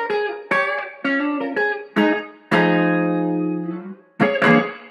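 Intro theme music on guitar: short chords struck about twice a second, each ringing and fading, then one long held chord and two last quick chords that end the theme.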